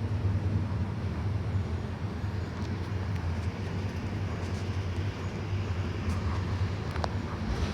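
Diesel engine of a Mercedes-Benz OF 1721 bus running steadily with a low hum and road noise, without revving. A single sharp click comes near the end.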